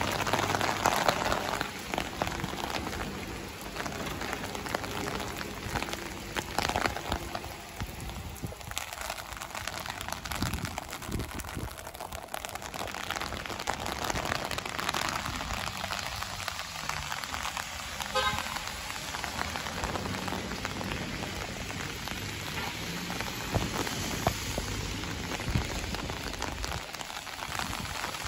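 Rain falling on wet pavement: a steady hiss with scattered sharper taps and splashes.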